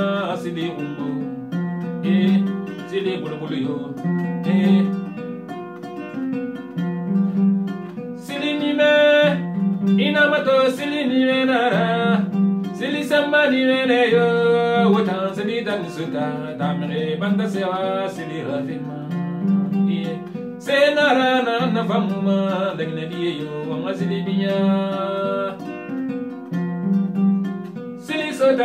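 Kora plucked in a repeating pattern of low bass notes under a running higher melody, with a man singing a Susu song in phrases over it.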